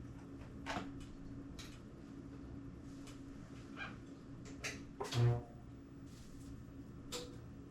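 Handling noises: a series of small clicks and knocks, the loudest a thump about five seconds in, over a steady low electrical hum.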